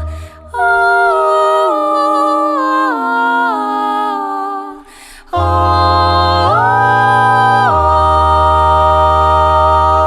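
An a cappella vocal group singing sustained close-harmony chords in imitation of an electronic device sound effect. The first chord steps down in pitch several times and fades. After a short pause, a long held chord over a deep bass voice shifts up and then back down.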